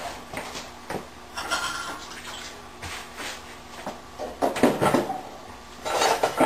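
Kitchen knife cutting raw chicken tenders into chunks: irregular knocks and short scrapes, busier near the end.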